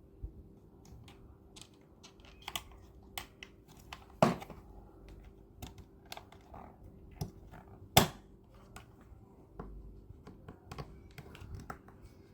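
Irregular light clicks and knocks of trolley parts being fitted together by hand, with two sharper knocks about four and eight seconds in.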